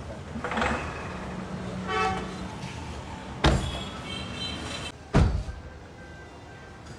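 Two sharp knocks, about three and a half and five seconds in, the second a heavier, deeper thud of a car door shutting, with a brief horn-like toot about two seconds in.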